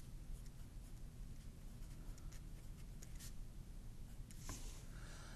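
A pen writing on lined notebook paper: faint, short strokes of the tip across the page, one after another.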